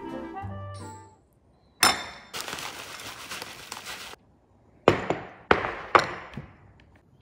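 A single crockery clink, then granola clusters poured from a bag into a ceramic bowl, a steady rustle lasting about two seconds. Three sharp clinks and knocks of crockery follow, about half a second apart.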